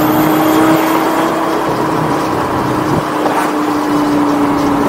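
2004 Lamborghini Gallardo's straight-piped 5.0 V10 running at a steady cruise, a drone held near one pitch that sags slightly after about three seconds, over road and tyre noise.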